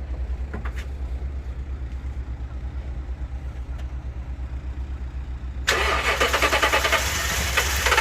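Car engine being cranked on the starter motor with a steady, rhythmic churn but not firing: a no-start. About three quarters of the way in, a loud hiss-like noise begins suddenly over it.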